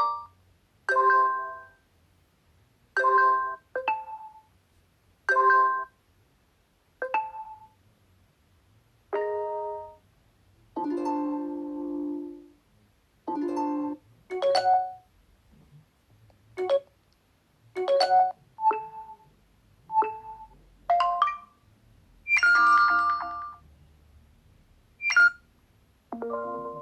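Oppo A16 smartphone's built-in notification tones previewed one after another: a string of short electronic chimes and jingles, each about a second long, separated by brief silences.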